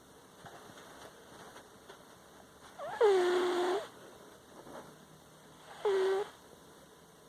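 Sleeping cat snoring with squeaky, pitched breaths: a loud squeak about three seconds in that slides down in pitch and then holds for about a second, and a shorter one about six seconds in.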